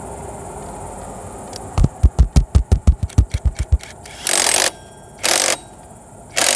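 Cordless impact wrench driving the variator nut on a scooter's belt drive: a run of about fourteen hard knocks over two seconds, then three short bursts as the trigger is pulled again.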